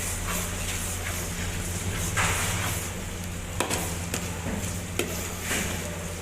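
Food sizzling on a hot griddle over a steady low hum, with a few sharp clicks, irregularly spaced, in the second half.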